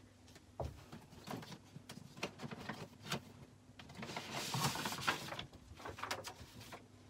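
Sheets of paper and card being handled: scattered light taps and knocks, with a stretch of paper rustling and sliding about four to five seconds in.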